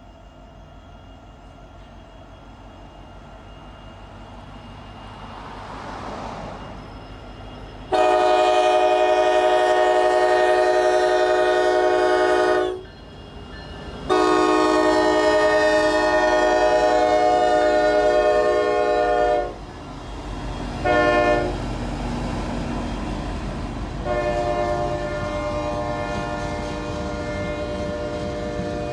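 Norfolk Southern SD60E diesel locomotive approaching and passing, sounding its air horn in the grade-crossing pattern: two long blasts, a short one and a final long one, the last quieter than the first two. A low rumble from the train builds over the first few seconds and runs on under the horn as the loaded rock hopper cars roll by.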